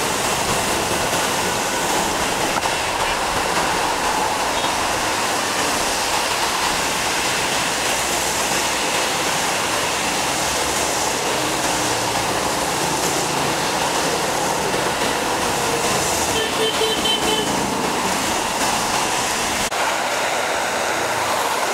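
Heavy rain falling steadily on a wet road, with motorbikes, an auto-rickshaw and buses hissing through the water as they pass.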